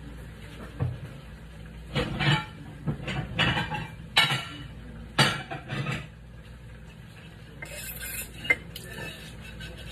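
Dishes and kitchen utensils clattering and scraping in a run of knocks through the middle seconds, then a single sharp click near the end, over a low steady hum.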